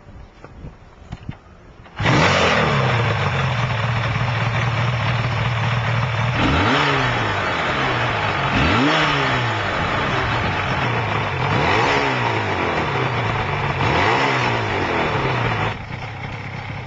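Yamaha RZ500's two-stroke V4 engine catching suddenly about two seconds in and idling, with the throttle blipped about four times in rising and falling revs.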